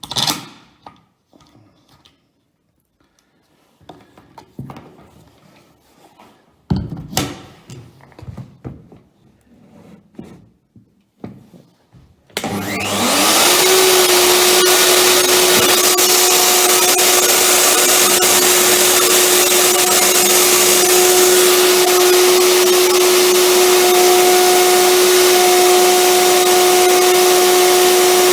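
A few light knocks and clicks of handling. Then, about twelve seconds in, a plunge router is switched on: it spins up in a quick rising whine and runs loud and steady at full speed while it cuts into the oak worktop.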